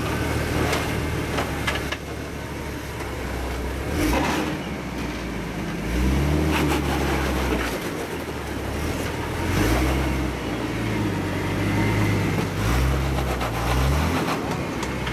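Jeep Wrangler TJ's 4.0 L inline-six engine crawling over rocks, revving up three times in short bursts between lower running, with a few sharp knocks from the tyres and underbody on rock.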